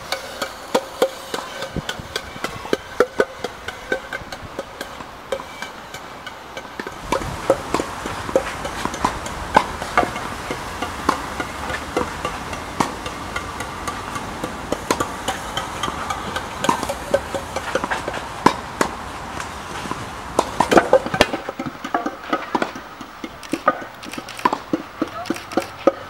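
Large block dominoes toppling in a long chain, each block knocking into the next: a fast, uneven run of sharp knocks.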